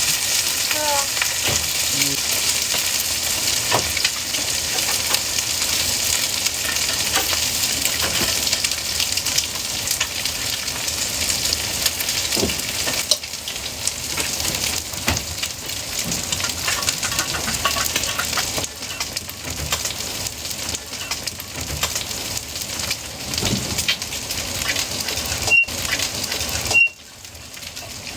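Food frying in hot oil: a steady sizzle with fine crackling. Near the end come two short high beeps about a second apart, and the sizzle briefly drops away after the second.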